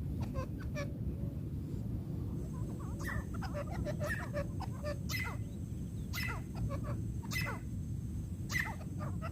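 Francolin (teetar) calling: a few quick sharp notes, a short pause, then a regular series of sharp calls about once a second. A steady low hiss lies underneath, and a thin high steady tone comes in about two seconds in.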